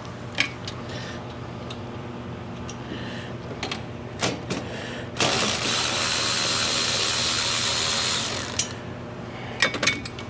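Metal tools clicking and knocking against bolts on a mower's fan cover plate. About halfway through a power tool whirs steadily for about three seconds, then stops, followed by a few more clicks.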